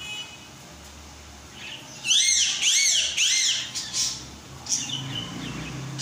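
Budgerigar chirping: a quick run of about four arched, rising-and-falling chirps about two seconds in, then a few softer calls near the end.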